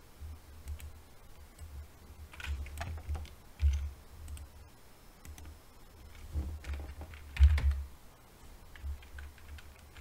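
Typing on a computer keyboard: irregular key clicks as a terminal command is typed and Enter is pressed repeatedly, with dull low thuds under the keystrokes, the loudest about three quarters of the way through.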